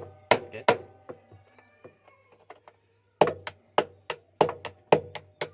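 Sharp metal taps of a screwdriver being knocked in behind the retaining washer of a washing machine drum to pry it loose, each tap ringing briefly. Two taps near the start, a few faint clicks, then a quick run of about seven taps from about three seconds in.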